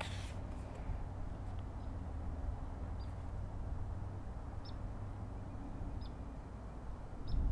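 Faint outdoor ambience: a low steady rumble with four or five short, faint high chirps from a small bird spread a second or so apart, and a brief paper rustle right at the start.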